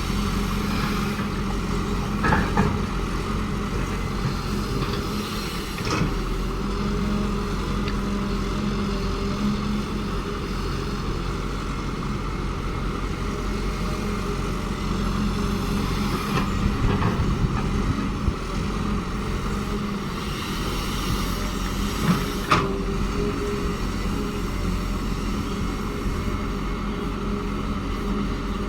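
Caterpillar excavator's diesel engine running steadily under digging work, with a handful of sharp clanks spread through.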